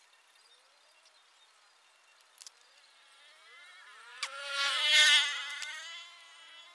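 Small motorbike engine revving up and back down, a buzzing whine that swells about four seconds in, peaks near five and fades away.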